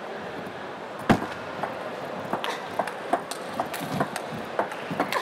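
Table tennis rally: the celluloid ball clicking off the rubber rackets and the table in a quick back-and-forth, about three hits a second, after a single louder knock about a second in.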